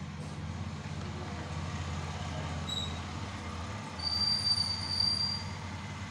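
Breaded risoles sizzling as they fry in oil in a pan, growing louder about four seconds in as another piece goes into the oil. A thin high-pitched squeal rides over the sizzle for about a second and a half, over a steady low hum.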